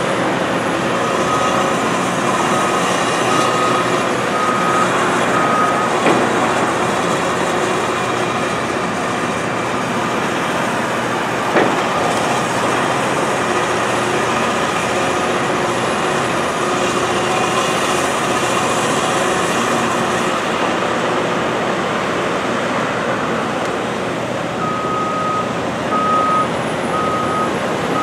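Caterpillar excavator's diesel engine and hydraulics running steadily while it lifts heavy wooden timbers, with a backup alarm beeping in two spells, near the start and near the end, and a single sharp knock about halfway through.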